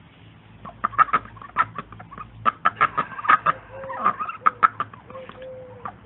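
Domestic poultry calling: a rapid, irregular series of short, sharp calls, with a couple of longer drawn-out calls in the second half, over a low steady hum.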